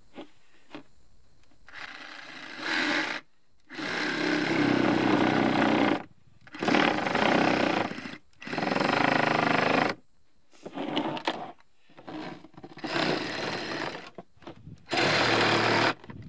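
Cordless reciprocating saw cutting through a black plastic lid, run in a series of bursts a second or two long with short pauses between.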